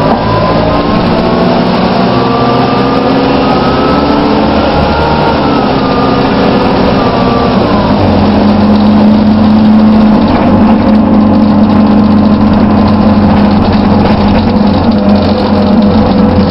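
Plaxton Pointer Dart bus's drivetrain whirring, a whine that rises in pitch for the first several seconds, drops sharply about halfway through, then runs on steadily at a lower pitch.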